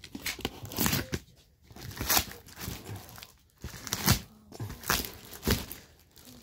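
Brown packing tape and cardboard of a taped carton being ripped open by hand, in a string of short irregular rips and crinkles.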